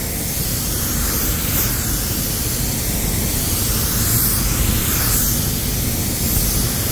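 Iwata W-300 spray gun with a 1.3 mm nozzle hissing steadily as compressed air atomises varnish while a coat is sprayed on, the hiss wavering slightly.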